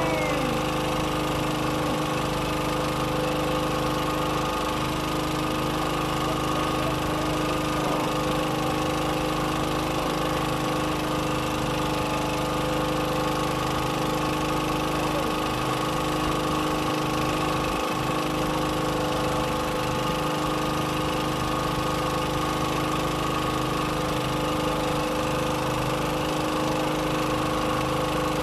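Boat engine running steadily at an even speed, a constant drone that holds the same pitch throughout.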